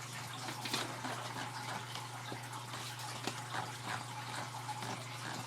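Steady background hiss with a low, constant hum, and a few faint scattered clicks.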